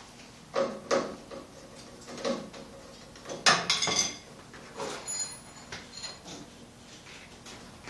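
Scattered clicks, knocks and light metallic clinks of hand tools and small parts being handled on a small engine's carburettor and air filter, one clink ringing briefly about five seconds in.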